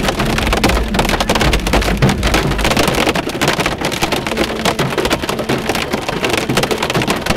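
Hail and heavy rain pelting a car's roof and windshield, heard from inside the cabin as a dense, loud crackle of impacts. A low rumble underneath fades out about three seconds in.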